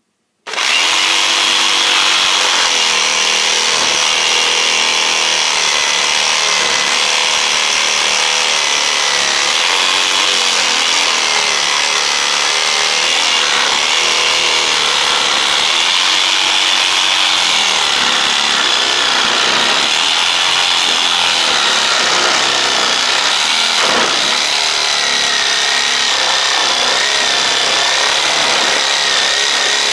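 Electric jigsaw starting up about half a second in, then running without a break as its blade cuts along a wooden board, with a faint motor whine that wavers a little in pitch.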